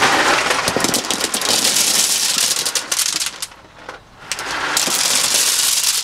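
Wet river pebbles poured from a plastic pot onto a bed of pebbles in a rubber-lined pond, rattling and clattering in two pours with a short pause between.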